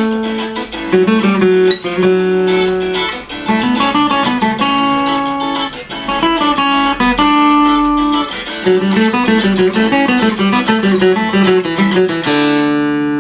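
Acoustic guitar playing a slow, relaxing piece in picked broken chords, with notes rising and falling, ending on a final chord left to ring near the end.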